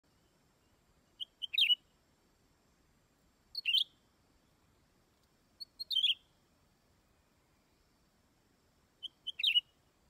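A leafbird calling four times, a few seconds apart: each call is a couple of quick high notes running into a louder, sharper chirp. It is a caged decoy bird calling to draw in wild birds.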